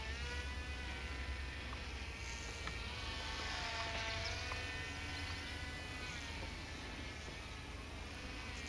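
Two small electric motors and propellers of a Silverlit X-Twin Turbo-Fury RC plane in flight, making a thin buzzing whine. The pitch slides down and up in slow arcs as the plane passes and turns.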